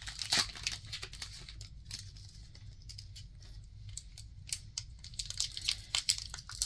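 A foil Lorcana booster pack wrapper being crinkled and torn open by hand, in scattered crackles and sharp snaps with a quieter stretch in the middle.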